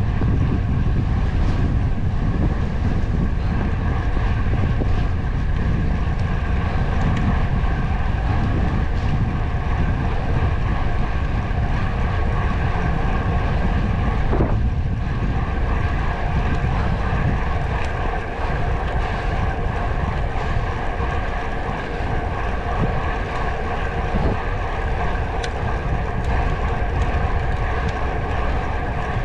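Wind buffeting the microphone while riding, over a steady drone from the moving vehicle that holds an even pitch throughout.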